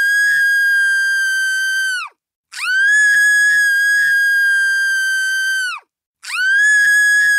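A woman's high-pitched scream held on one steady note, repeated with short silences between. One scream cuts off about two seconds in, a second lasts about three seconds, and a third begins near the end.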